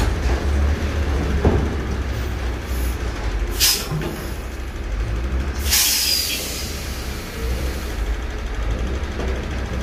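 Heavy diesel engine running with a steady low rumble at a container-loading yard's truck and handler. Two short, sharp air hisses cut in, about three and a half and six seconds in.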